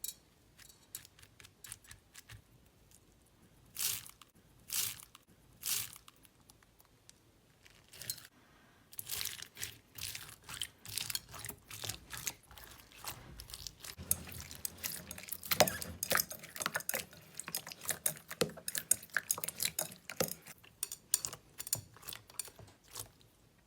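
Slime being handled: a few faint sticky clicks at first, three short squelches about four to six seconds in, then dense crackling and popping that thickens toward the end.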